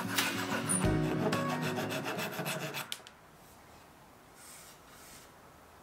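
Flush-cut hand saw rasping back and forth in quick strokes, trimming protruding wooden dowels flush with a box top; the sawing stops about three seconds in.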